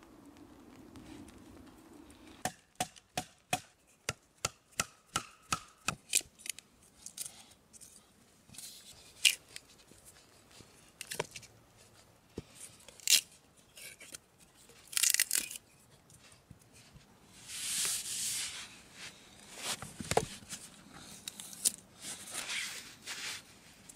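A knife working a block of softwood: a quick run of about a dozen evenly spaced knocks as the blade strikes the wood, then scraping and tearing sounds of the blade splitting and shaving it, with a dull thud about twenty seconds in.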